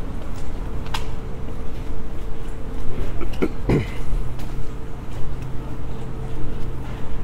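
City street ambience: a steady low rumble with a faint hum, and a few scattered knocks and clicks, one about a second in and a pair between three and four seconds in.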